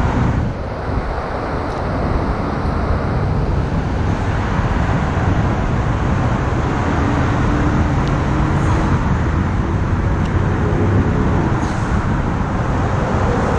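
Steady hum of road traffic from vehicles crossing the highway bridge, with a faint engine tone rising and falling through the middle seconds.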